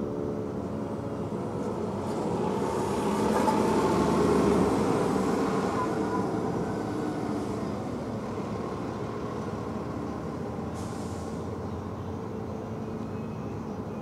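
The Erick Warning Siren's steady pitched tone fades out in the first couple of seconds. Then a rushing noise of a passing vehicle swells to its loudest about four seconds in and slowly dies away.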